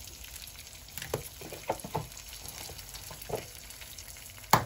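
An egg frying in olive oil in a nonstick pan: a faint steady sizzle with scattered small crackles and pops, and one sharp knock near the end.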